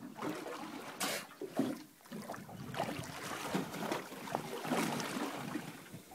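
Sea water sloshing and splashing against the side of a boat where a dolphin swims at the surface, with a sharper splash about a second in and another about five seconds in.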